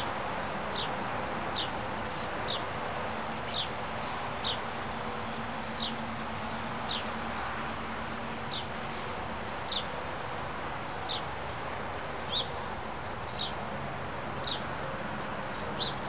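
A small bird repeating a short, high chirp that slides down in pitch, about once a second, over the steady hiss of rain.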